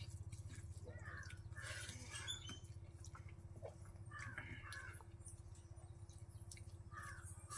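Eating sounds: fingers mixing and squishing rice and curry on a banana leaf, with wet chewing and mouth noises coming in three short bursts, over a low steady hum.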